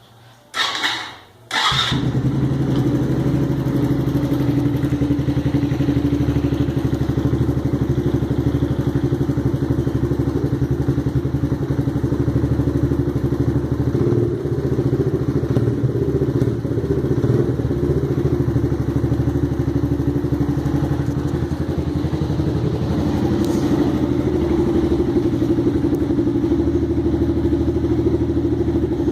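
Suzuki Intruder 125's single-cylinder engine starting up with a short burst of cranking, catching at about two seconds, then idling steadily. It runs through a modified exhaust with a deep note.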